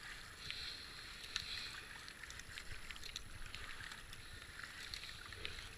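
Kayak paddle strokes in calm river water: a faint steady wash of water along the racing kayak's hull, with a few light ticks of drips and the paddle blade entering the water.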